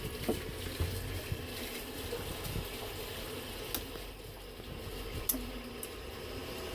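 Gas combi boiler running on test: a steady rushing noise with a low hum, and a couple of sharp clicks partway through.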